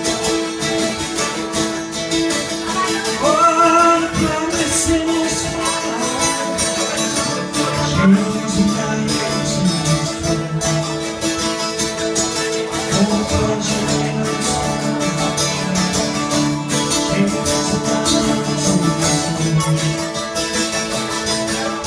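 Live acoustic string band playing a country song: strummed acoustic guitars and a banjo playing together at a steady tempo.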